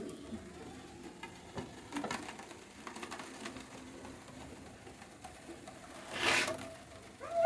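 Roll laminating machine running with a faint steady hum and scattered small clicks, plus a brief rustle about six seconds in.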